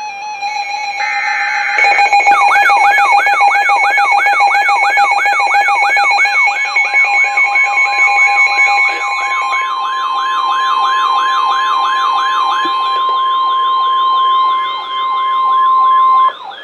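Emergency Alert System tones on NOAA Weather Radio. A short screechy data burst comes about a second in, then several layered electronic sirens wail rapidly, about two sweeps a second. About six seconds in, a steady high weather-radio warning alarm tone joins them and runs for about ten seconds before cutting off just before the end.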